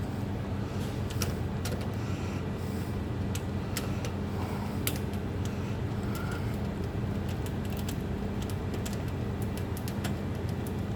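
Light metallic clicks of a pick and key working in a tubular toolbox lock, over a steady low hum like a running motor.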